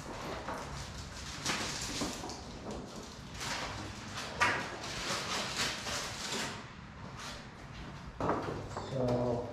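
Paper rustling and things being handled and shifted on a work table, in short irregular bursts that die down after about six seconds, with a brief low hum of a man's voice near the end.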